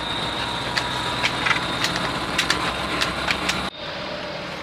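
Steady car engine and road noise heard while driving, with scattered sharp clicks. It changes abruptly near the end to a quieter, steadier hum.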